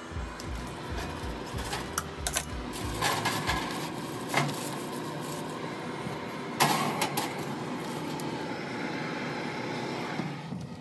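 Metal baking tray with a foil-wrapped milkfish being handled on an open oven door and slid into the oven: a few sharp clicks and a rustle, then a metallic clatter about six and a half seconds in as the tray goes onto the rack, over a steady background hum.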